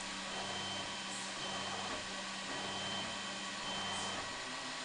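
Dremel 3D printer running a print: its fans hiss steadily while the stepper motors hum in short moves that start and stop every second or so.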